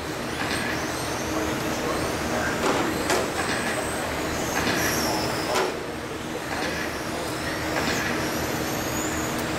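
Electric 1/10-scale Vintage Trans-Am RC cars racing on a carpet track. The motors and drivetrains whine, rising and falling in pitch as the cars accelerate and brake, over tyre noise, with a few sharp clicks.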